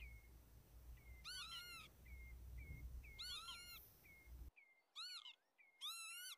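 Northern lapwings giving wheezy 'pee-wit' calls: about four rising-then-falling notes, with short high chips in between. These are the alarm calls of a lapwing disturbed near its eggs or chicks.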